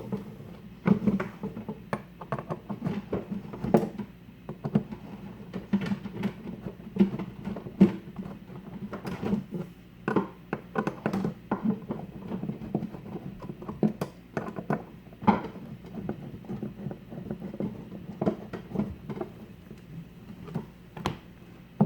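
Screws being tightened by hand with a screwdriver to fix a cabinet handle: irregular small clicks and knocks of the tool working the screws, repeating throughout.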